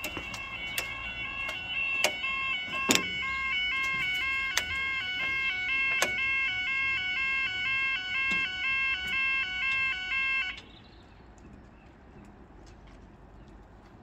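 UK level crossing audible warning alarm sounding a repeating two-tone warble while the barriers lower, with several sharp knocks in the first half. The alarm cuts off suddenly about ten and a half seconds in, leaving quiet street background.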